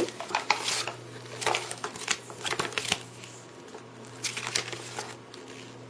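Paper rustling and crackling as a printed user-manual leaflet is handled and unfolded, in short irregular bursts.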